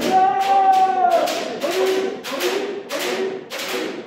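Kendo men (head) strikes drill: repeated sharp cracks of bamboo shinai hitting protective gear, about three a second, over the practitioners' kiai shouts, the first held for about a second and the rest shorter.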